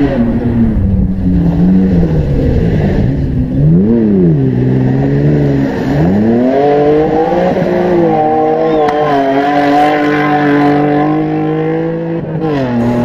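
Off-road race vehicle's engine revving: the pitch rises and falls a few times, then holds at high revs for several seconds before dropping near the end.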